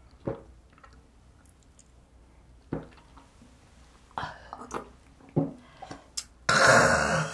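A man downing a shot of soju: faint sipping, swallowing and mouth sounds, then near the end a loud, harsh exhale lasting about a second after the shot.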